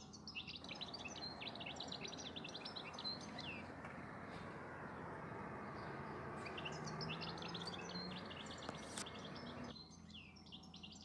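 Small birds chirping and twittering, over a faint rushing noise that comes in about half a second in, swells to its loudest around seven seconds and stops abruptly near the end.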